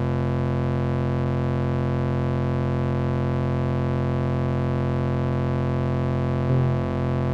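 Korg Volca synthesizer drone: a dense chord of steady held tones, with a brief wobble in pitch near the end.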